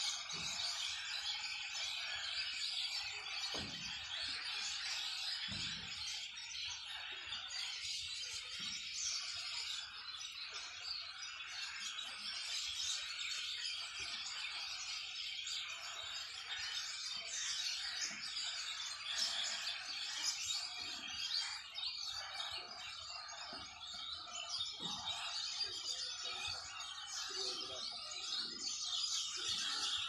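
A large flock of birds roosting in trees at dusk, many calling at once in a continuous dense chorus of chirps and chatter.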